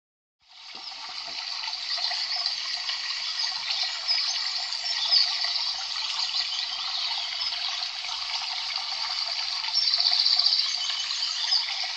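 Steady rush of running water, fading in over the first second or two, thin and high with no low rumble.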